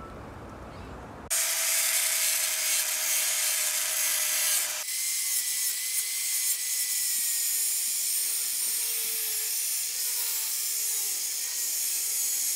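Corded angle grinder with a cutting disc slicing through a thin aluminium street sign: a loud, harsh, high-pitched cutting hiss with a faint whine that starts suddenly about a second in and runs steadily on.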